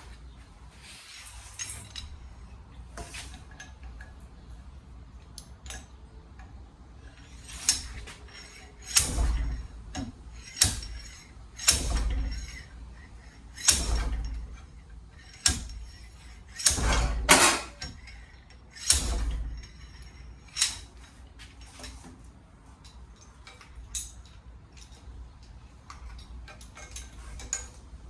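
Metal tools knocking and clanking against metal parts: an irregular series of sharp strikes, loudest and closest together through the middle.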